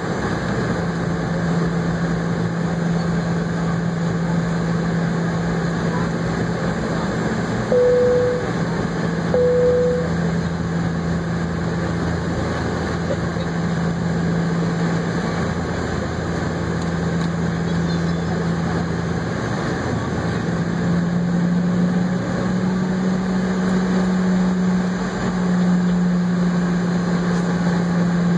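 Cabin noise of a Boeing 717 taxiing, heard from a window seat: the rear-mounted jet engines make a steady low hum over rushing air, and the hum rises slightly in pitch about twenty seconds in. Two short beeps of the same pitch sound about eight and nine and a half seconds in.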